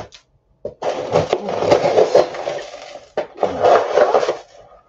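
Dry TVP chunks rattling and rustling as they are scooped and poured with a plastic measuring cup, in two bursts: a longer one of about two seconds, then a shorter one.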